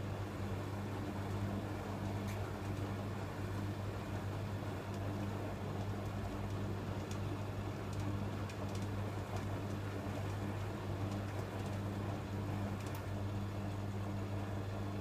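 Electrolux EWF12108W washing machine running steadily during the distribution stage of a rinse, its motor and turning drum giving a constant low hum with a few faint ticks.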